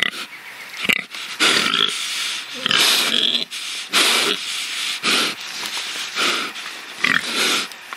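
Pig grunting and squealing: a series of short, harsh calls, roughly one a second, some with a thin high squealing edge.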